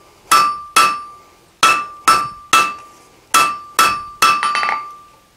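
Hand hammer striking a red-hot steel bar on an anvil: eight blows in groups of two and three, each one followed by a ringing tone from the anvil. The smith is rounding up the edges of the tapered hook blank.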